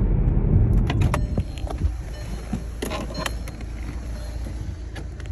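Car road noise heard from inside the cabin, a steady low rumble, for about the first second; then, quieter, a string of scattered clicks and knocks from the stopped car's door and interior being handled.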